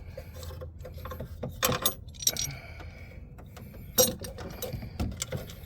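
Hands working on a vehicle's coolant reservoir and hose clamp: a string of clicks and knocks, the sharpest about four seconds in, over a low steady hum.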